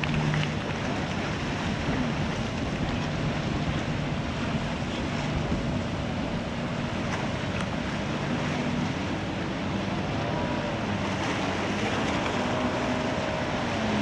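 Steady wind rushing on the microphone over the wash of water and waves, with a low, steady hum of a boat engine underneath.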